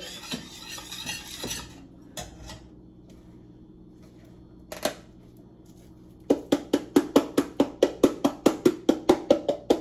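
A spoon knocking against a pot while sauce is stirred: a couple of single knocks, then, from about six seconds in, a quick even run of clinks, about four or five a second.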